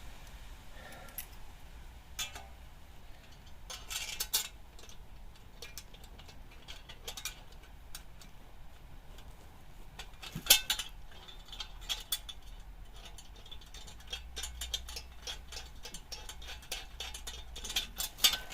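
Small metal bolts, nuts and washers clinking and clicking as they are handled and tried for fit, in scattered light taps, with the sharpest clink about ten seconds in.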